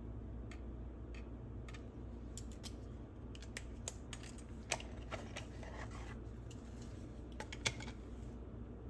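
Sharp clicks and taps of small crafting tools being handled on a granite countertop: a pen, metal scissors and a plastic ink pad case. A few light taps come first, then a busy run of clicks between about two and a half and eight seconds in.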